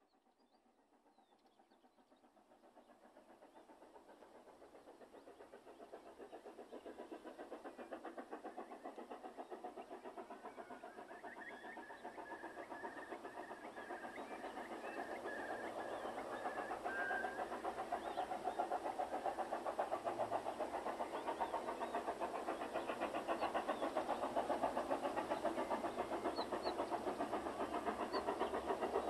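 An engine-like running sound with a fast, even pulse. It fades in from silence over the first few seconds and slowly grows louder.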